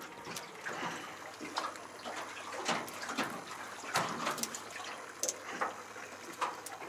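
Wet slapping, splashing and irregular knocks from a freshly caught snapper being unhooked with pliers and handled on a wet aluminium boat deck.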